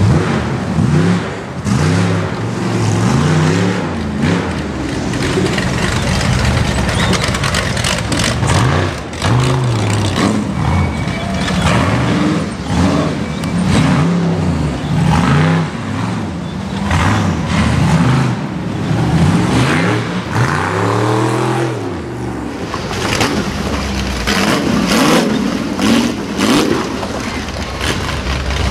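Rock bouncer buggy's engine revving hard, up and down again and again, as it claws up a rocky hill climb. Sharp knocks and cracks come through, thickest near the end.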